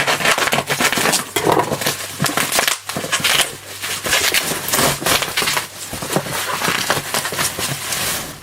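A cardboard box and its packing being opened and handled by hand: continuous rustling and crackling with many short, sharp scrapes, and a brief pause about three seconds in.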